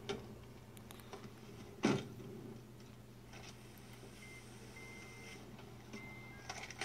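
Film soundtrack heard through a TV speaker: a car door shutting with one loud thump about two seconds in, a few small clicks, then a faint high-pitched tone sounding on and off near the end, over a low steady hum.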